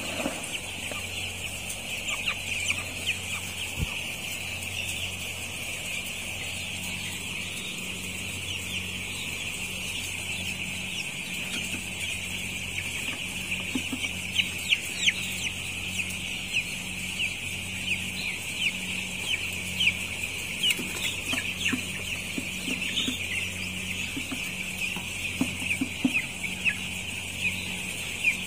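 A large flock of nine-day-old broiler chicks peeping continuously: many short, high peeps overlapping into a dense chorus. A steady low hum runs underneath.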